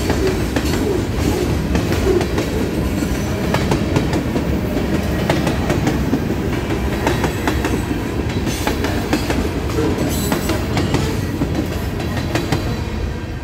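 Freight train cars (boxcars and covered hoppers) rolling past close by: a steady rumble of steel wheels on rail, broken by repeated sharp clacks as the wheels cross rail joints.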